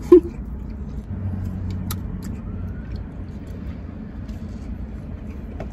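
Steady low rumble of a car, heard from inside the cabin, under faint mouth and chewing sounds as a buffalo chicken wing is bitten and eaten. A short, loud hum comes right at the start.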